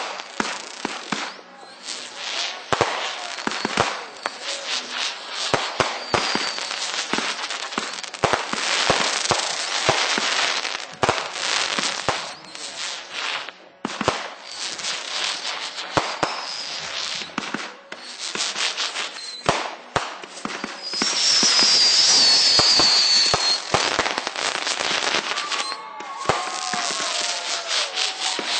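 Fireworks going off in quick succession: a dense run of cracks and pops, with a loud high whistle, falling slightly in pitch, for about two seconds a little past two-thirds of the way through.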